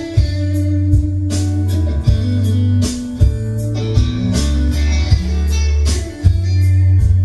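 Music playing through a car audio system with a subwoofer: a guitar-led instrumental passage over heavy, sustained bass notes, with a drum hit about once a second.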